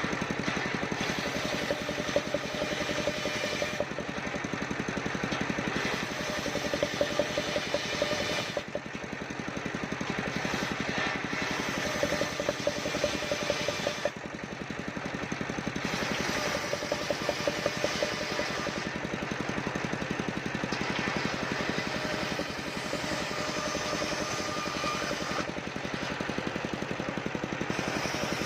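Engine-driven portable circular sawmill running steadily while ripping waru wood into roof battens. Its sound changes every five seconds or so as it moves between cuts.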